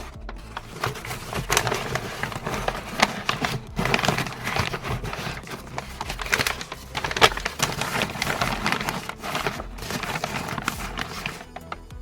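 Packing material crinkling and crackling as it is handled and wrapped, in a busy run of small rustles and snaps.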